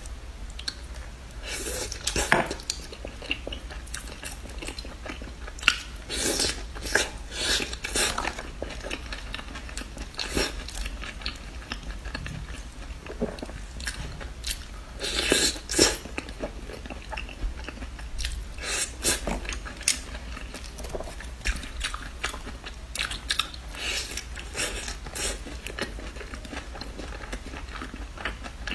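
A person biting and chewing fried skewered food close to the microphone: irregular crunchy bites come in bouts, with chewing between them.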